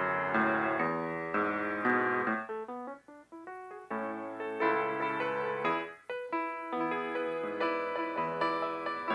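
Solo piano playing a slow melody of separate notes in phrases, with brief breaks between phrases about three and six seconds in.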